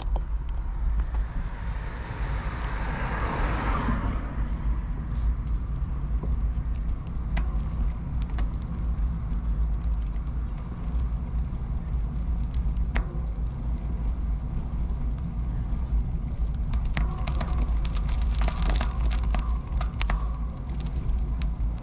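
Steady low wind rumble on a camera microphone with tyre noise from a moving bicycle. A car passes, swelling and fading about two to four seconds in. Near the end comes a short cluster of sharp clicks and rattles.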